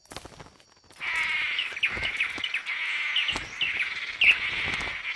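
Tropical forest ambience: a steady insect drone sets in about a second in, with short falling bird chirps repeated over it every half second or so.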